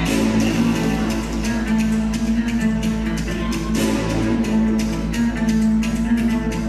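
Music with rapidly plucked strings over a steady low drone.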